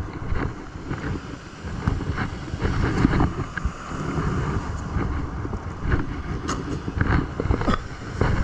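Wind buffeting the microphone in an uneven low rumble, with scattered small clicks and knocks.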